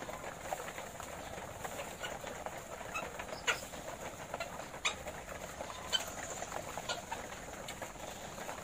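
Caged layer hens feeding at the cage troughs: a steady patter of pecks and small ticks against the wire and trough, with three sharper clicks standing out.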